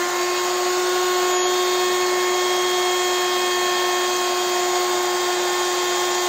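Router in a router table running at full speed with a steady high whine, together with the rushing of the shop vacuum hosed to its dust port. The vacuum has switched itself on with the router through a tool-activated auto-start outlet.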